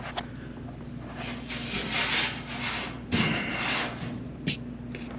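Rubbing and scraping as something is handled, in two rough stretches, with a sharp click near the end, over a steady low hum.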